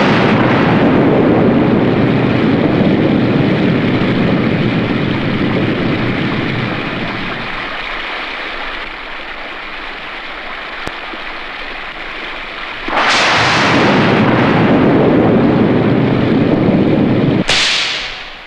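Cartoon storm sound effects: heavy, steady rain with thunder. The rain eases after about seven seconds, a sudden loud crash comes in about thirteen seconds in, and the sound fades away at the end.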